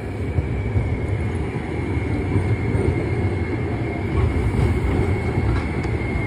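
Amsterdam GVB tram passing close by: a steady rolling rumble with a thin, steady high-pitched tone held over it.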